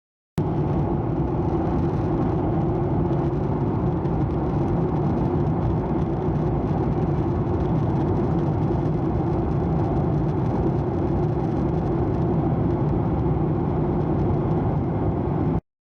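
Steady drone of a vehicle's engine running at an even pace, starting and stopping abruptly.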